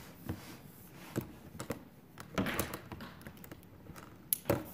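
Scattered clicks, taps and a short scrape as tow poles are unhooked from a plastic sled and handled, with a sharp click and a knock near the end.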